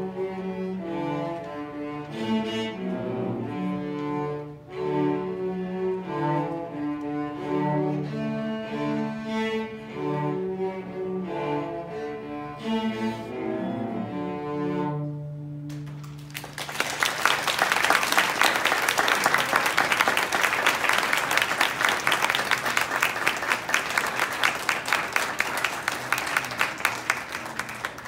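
An ensemble of five cellos playing a piece, closing on a held low note a little past halfway. The audience then breaks into applause, louder than the music, which runs to the end.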